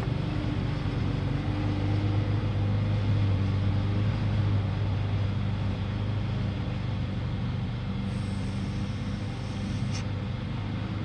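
An engine running steadily in the background, a low even hum, with a single short click near the end.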